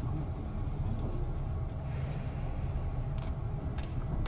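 Tobu 9000 series electric commuter train heard from inside the car: a steady low rumble with a few faint clicks.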